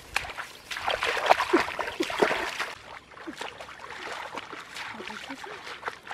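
Bare feet splashing through shallow muddy water: a quick run of splashes about a second in, then fainter sloshing.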